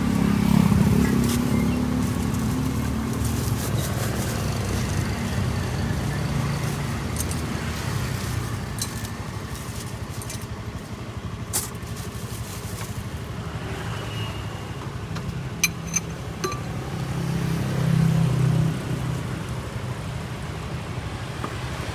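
Road traffic: motor vehicles running and passing, a low rumble that swells near the start and again toward the end, with a few sharp clicks and clinks in between.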